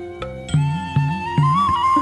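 Instrumental intro of a karaoke backing track for a Telugu devotional cradle song: a held, flute-like melody line that rises slightly about a second in, over a steady low beat.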